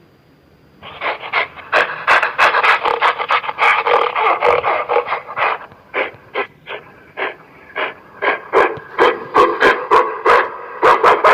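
A gorilla giving a rapid run of short, sharp calls starting about a second in. The calls come densely at first, then as separate sharp calls several times a second.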